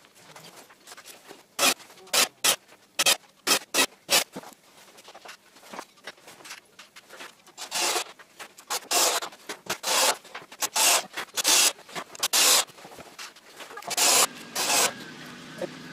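A series of short rubbing strokes against wood, quick at first and then longer, about half a second each. Near the end a cordless drill runs, driving a screw through a pine batten into the boards.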